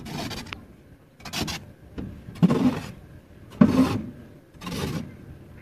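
A long-handled shovel scraping and digging through sand in a tractor trolley, five strokes about one every second and a bit.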